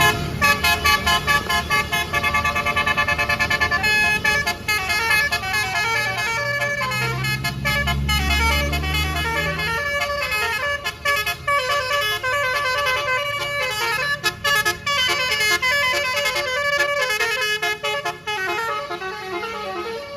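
Bus-mounted Basuri telolet multi-tone air horn playing a rapid melody of short notes throughout. A low bus engine rumble swells and rises in pitch about halfway through.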